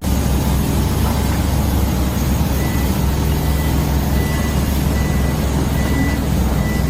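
A heavy engine running steadily with a low drone, with a faint high whine that comes and goes.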